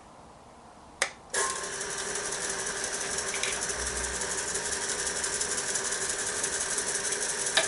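Wood lathe spinning a turned box while a turning tool cuts it, making a steady, rapid chattering scrape with a steady hum under it. It starts after a click about a second in and stops near the end.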